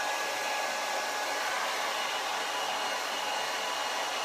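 Hair dryer fitted with a collapsible silicone diffuser, running steadily: an even rush of blown air with a faint steady whine.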